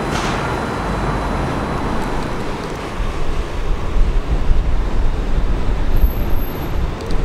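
Steady outdoor city background noise. From about three seconds in, wind buffets the microphone in an irregular, gusty low rumble.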